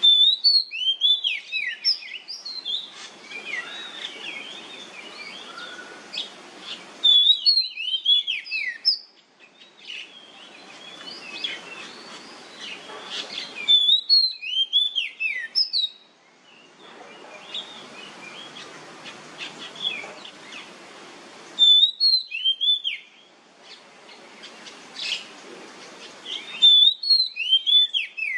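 Oriental magpie-robin singing in short, loud bursts of whistled notes that swoop up and down, about every six seconds (the 'nyemplong' style). Between the bursts there is a faint hiss that cuts in and out abruptly.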